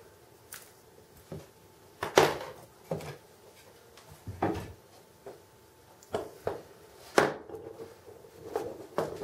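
Scattered clicks and knocks of small diecast model crane jib parts being handled and set down on a workbench while the jib is taken apart, with sharp knocks about two seconds in and again about seven seconds in.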